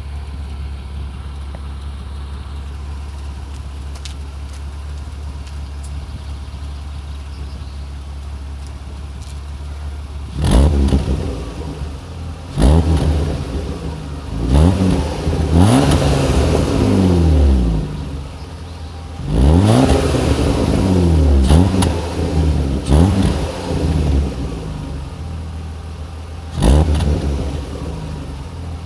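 BMW E36 325's engine on its stock exhaust, idling steadily for about ten seconds, then revved about seven times, each rev rising and falling back toward idle.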